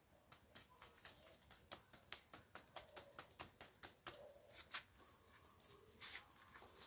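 Faint dry crackling, about four small clicks a second, as packed soil and fine roots break loose while a desert rose (adenium) is worked up and out of its pot.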